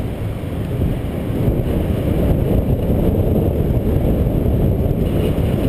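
Wind rushing over the microphone of a camera on a moving bicycle: a steady low rumble, a little louder from about a second and a half in.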